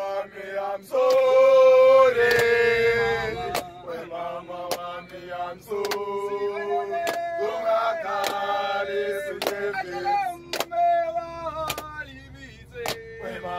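Men singing a chant together, clapping their hands on a steady beat of a little under two claps a second.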